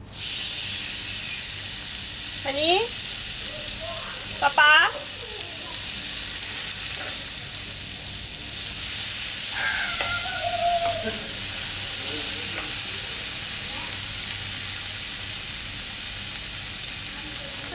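Food frying in a hot pan or on a grill, a steady sizzling hiss that starts suddenly and holds even throughout.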